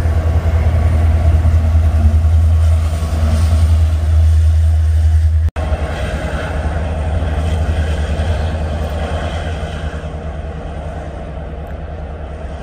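Freight cars rolling past with a steady heavy rumble; after a sudden cut, a Union Pacific locomotive-led freight train running along a curve, its rumble slowly fading.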